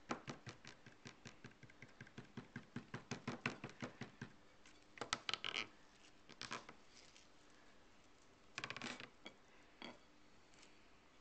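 Fingers squeezing and kneading cornstarch-and-water oobleck: a rapid run of wet clicks and squelches over the first four seconds or so, then scattered squishes, with a longer squelch about nine seconds in.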